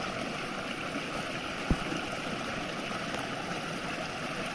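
Small creek spilling over rocks in a low cascade: a steady rush of running water. A single brief knock sounds just under two seconds in.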